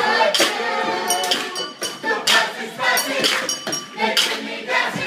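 A group of voices singing a rhythmic song, accompanied by clinking and knocking on improvised kitchen percussion: plastic cups rapped on a table, plates, dessert bowls and glasses, with a cowbell.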